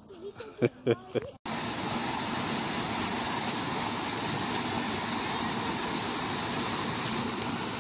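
Water rushing steadily over a series of small stepped weirs in a stone-lined canal, a constant loud splashing wash that starts abruptly about a second and a half in, after a man's voice and a few clicks.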